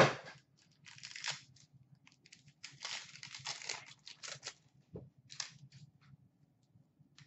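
A sharp tap right at the start as a stack of trading cards is set down on a glass counter, then crinkling and tearing of a card pack wrapper in several bursts as a pack is opened and its cards handled.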